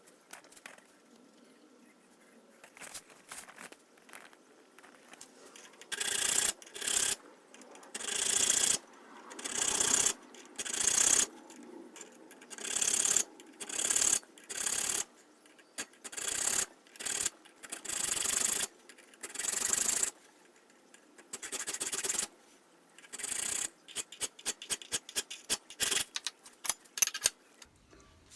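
Hand file rasping across the mild-steel spine of a cleaver made from a mower blade, in repeated strokes: faint at first, then loud strokes about one a second, turning to quicker, shorter strokes near the end.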